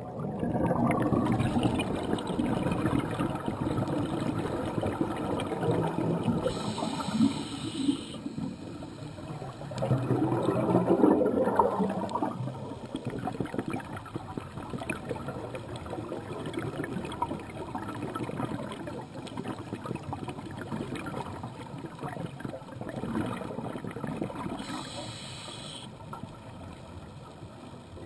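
Scuba diver breathing through a regulator, heard underwater: a bubbling rumble of exhaled air, strongest in the first dozen seconds with a surge around ten seconds in, and two short hisses of inhalation, one at about seven seconds and one near the end.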